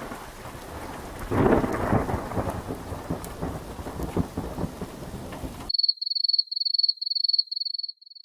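Thunderstorm sound effect: rain with rolling thunder, a loud clap swelling about a second and a half in, cut off suddenly near the end. It gives way to a high electronic beeping, about two beeps a second.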